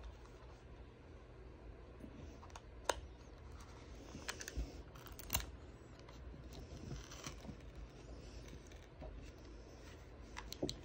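A small metal prying tool clicking and scraping along the edge of an iPhone 13 as its display is pried up from the frame, with a few sharp clicks spread over several seconds.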